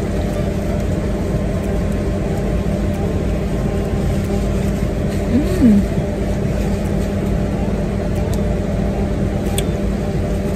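Steady in-cabin drone of a car idling with its air conditioning running.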